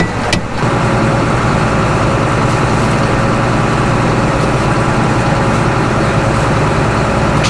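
John Deere 9500 combine's diesel engine running steadily, a low, even drone.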